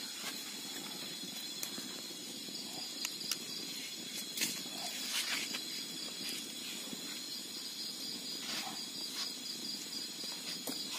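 A night chorus of crickets and other insects chirring steadily in a high, finely pulsing trill, with a few light clicks and scrapes from a bamboo stick working food out of a split bamboo tube.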